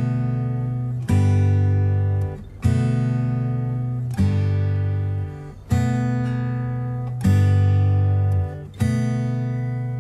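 Background music: acoustic guitar strumming, a new chord struck about every second and a half and left to ring.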